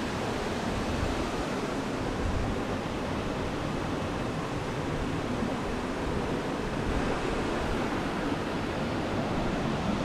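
Steady rushing of a waterfall and the stream below it, an even noise with some wind buffeting the microphone.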